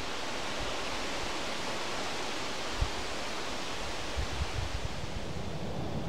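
Strong wind blowing through riverside trees and grass, a steady even hiss, with a few low thumps of wind buffeting the microphone about three seconds in and again just after four seconds.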